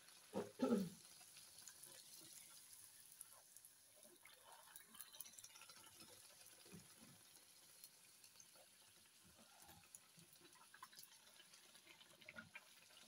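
Faint sizzling and crackling of golgappa puris deep-frying in a wok of hot oil, with a short voice sound about half a second in.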